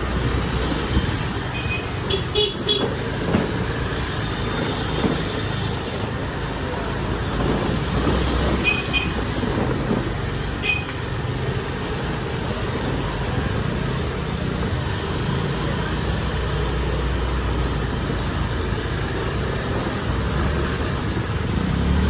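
Honda Lead motor scooters running at low speed, a steady engine hum, with short horn beeps about two seconds in and again near nine and eleven seconds.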